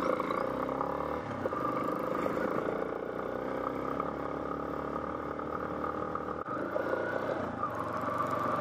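Motorcycle engine running steadily while the bike is ridden along rough cobbled and dirt roads, its pitch rising slightly near the end.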